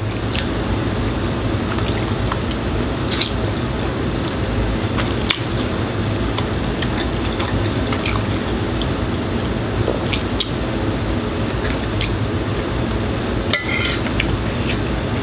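Steady, loud air-conditioner noise, over which come eating sounds: noodles slurped off a fork and scattered light clicks of a fork and spoon on ceramic plates, with a short run of clicks and scrapes near the end as the spoon works through rice on the plate.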